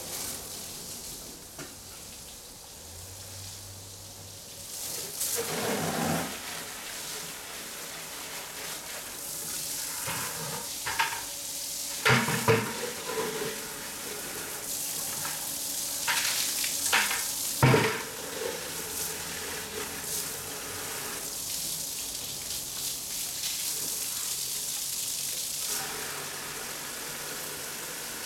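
Water from a garden hose hissing and splashing into a plastic bucket, with a few sharp knocks and clatters midway.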